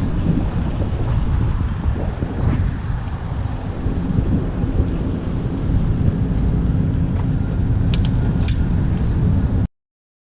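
Wind rumble on a GoPro microphone and street traffic noise while riding a bicycle, with a steady hum joining about three seconds in and a few short high ticks near the end. The sound cuts off suddenly just before the end.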